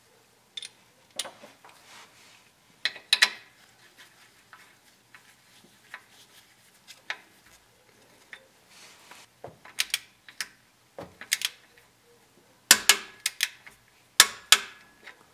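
Sharp metallic clicks and clinks of a socket wrench on an extension as the differential fill plug is threaded in and tightened to 25 ft-lbs. The clicks come in uneven clusters and are loudest in the last three seconds.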